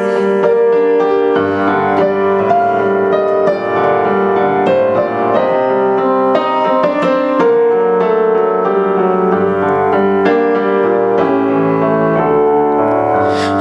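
Piano (or electric keyboard) interlude of a hymn, a steady run of chords and melody notes between sung verses.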